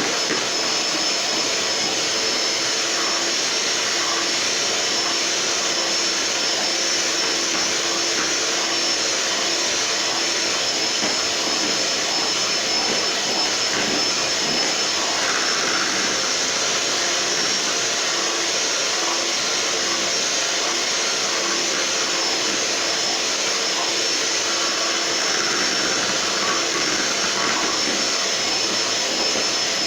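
Electric mixer running steadily while beating cake batter, a constant motor noise with a thin high whine over it.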